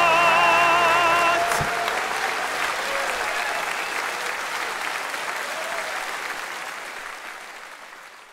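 The final held note of the song, a singer's voice with vibrato over a sustained brass band chord, stops about a second and a half in; a single thump follows, and the audience applauds, the applause fading away toward the end.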